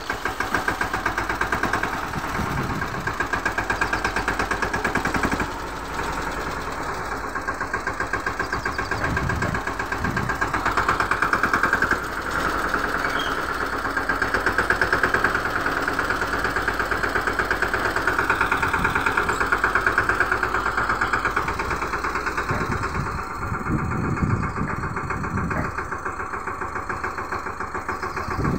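Mahindra Yuvraj NXT mini tractor's single-cylinder diesel engine running with a fast, even chug while it pulls a tine cultivator through stony soil. Its level swells and eases a few times as the load changes.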